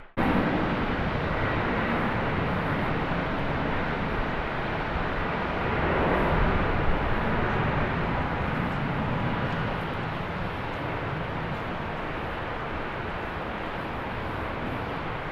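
Jet airliner engine noise, a steady roar with a faint whine in it, swelling about six seconds in and then slowly fading.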